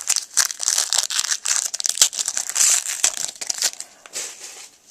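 Crinkling foil wrapper of a trading-card pack being torn open and crumpled, a dense run of crackles that thins out near the end.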